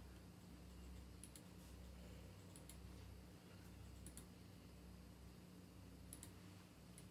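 Quiet computer mouse clicks, coming in quick pairs every second or two, over a low steady electrical hum.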